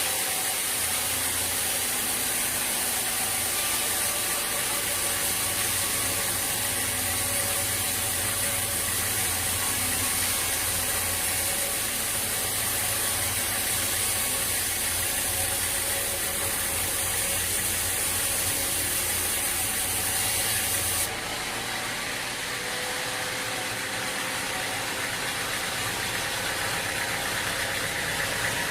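Sawmill machinery running steadily with a low engine hum and a high hiss; the sound changes abruptly about three-quarters of the way through, the hum and hiss dropping away and leaving a slightly quieter steady machine noise.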